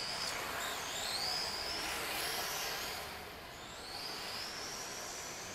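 Whine of a 1/10 Blaze D2 RC car's brushless motor, running sensorless, gliding up and down in pitch several times as the throttle is worked, over a steady hiss of tyres on concrete.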